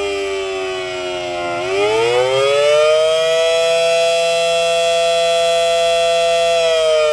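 Federal Signal Model 7AT tornado siren sounding a wail. Its pitch falls, climbs back up from about one and a half seconds in, holds steady for about three seconds, then begins to fall again near the end.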